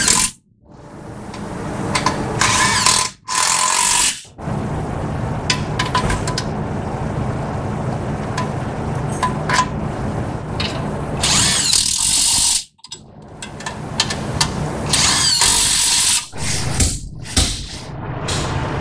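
A handheld power tool running in long steady stretches, cutting off abruptly a few times.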